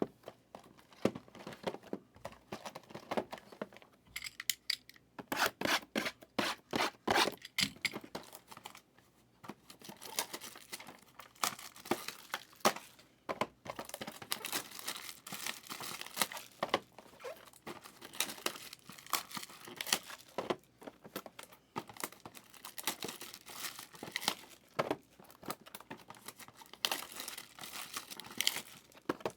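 Plastic shrink-wrap and cardboard packaging of a sealed trading-card case and its boxes being torn open and crumpled, in irregular crinkling and ripping sounds with short pauses between.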